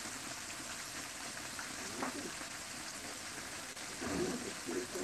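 Breaded chicken frying in hot oil in a shallow pan, a steady sizzle and bubbling. A few brief low sounds come about two seconds in and near the end.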